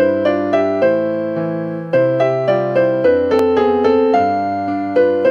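Channel intro music on an electric piano: a melody of struck notes, each fading before the next.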